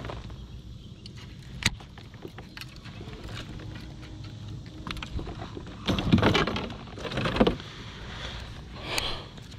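Fishing tackle being handled in a kayak: metal lures jangling and knocking, with a few sharp clicks. A louder rustling, knocking stretch starts about six seconds in and lasts over a second, over a steady low rumble.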